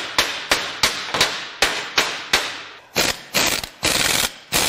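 Hammer blows ringing on a steel breaker bar, about three a second, as it is used to shock a seized, rusted exhaust-manifold bolt loose. From about three seconds in, the strikes give way to the fast rattle of a pneumatic impact wrench pressed against the bar.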